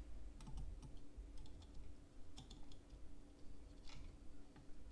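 Soldering iron working the solder pads of a USB flash drive's circuit board: faint, irregular small clicks and ticks, a few a second, over a low steady hum.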